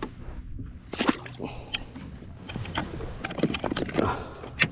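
Water sloshing and lapping against the hull of a small boat, with scattered irregular knocks and clicks from gear being handled aboard.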